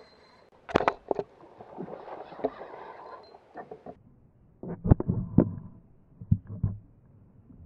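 Irregular knocks and thumps on a kayak hull, picked up through the hull-mounted camera. There is a pair of sharp knocks about a second in, then clusters of deeper, heavier thumps around five and six and a half seconds in.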